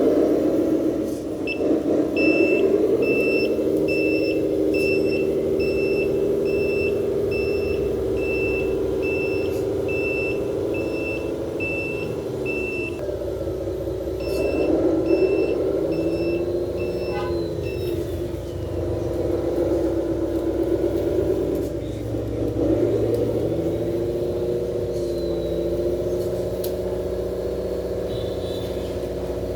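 RC scale truck's electronic sound module playing a simulated truck engine that rises and falls in pitch with the throttle, along with a reversing beeper sounding about one and a half times a second. The beeper runs through the first half, stops briefly, then sounds again for a few seconds.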